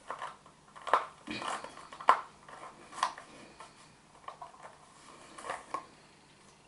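Apple TV product box and its packaging being handled one-handed: irregular knocks, clicks and rustles, the sharpest knocks about one and two seconds in.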